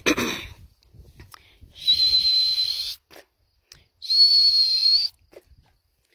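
A dog whistle blown in two steady, high-pitched blasts of about a second each, a recall signal to the dogs.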